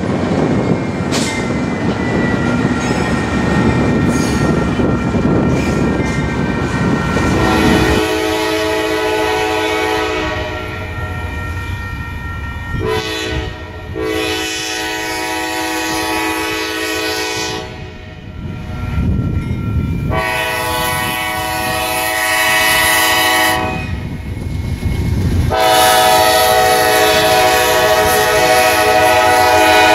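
Freight train cars rumbling past on the rails. Then, about eight seconds in, a Kansas City Southern diesel locomotive's multi-tone air horn sounds a run of long blasts with one short one, as the train approaches a grade crossing.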